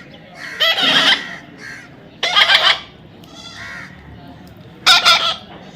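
A baby parrot giving three harsh squawks, each under a second long: one about a second in, one near the middle and one near the end.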